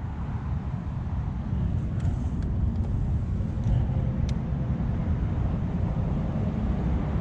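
Boat under way on the water: a steady low rumble from its motor, with a few faint clicks between about two and four seconds in.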